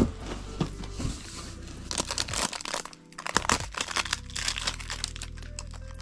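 Plastic and bubble wrap around a rolled bamboo room divider crinkling and rustling in irregular bursts as hands handle and unwrap it.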